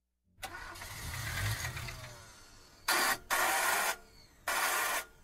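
An old car's starter cranking without the engine catching: one long crank with a low rumble that fades out, then three short half-second bursts of cranking. The car will not start.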